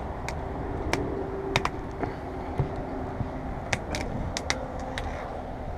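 Irregular sharp clicks and snaps as a windshield cut-out knife is worked between the glass and the rubber molding, catching on the molding clips, over a steady background hum.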